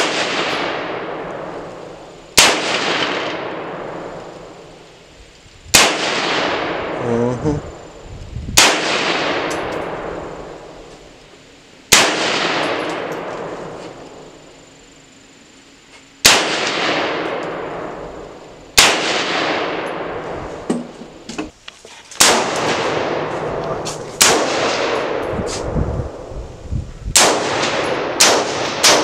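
Rifle shots from a scoped rifle, about a dozen, fired slowly two to four seconds apart. Each crack rings out in a long echo that fades over two to three seconds.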